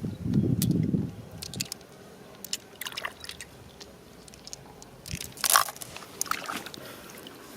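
Water sloshing and splashing with scattered clicks and knocks, the loudest splash about five and a half seconds in. A low rumble comes in the first second.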